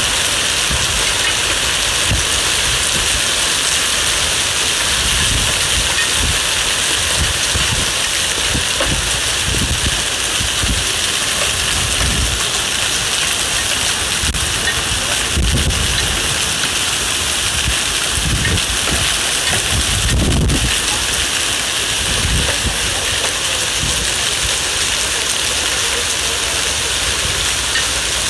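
Hail and heavy rain pelting paved ground, a dense, steady hiss, with low rumbles swelling and fading underneath now and then.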